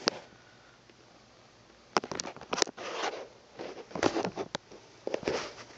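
Handling noise from a phone being moved about: a sharp click, then after about two seconds of quiet, scattered clicks, scrapes and rustles.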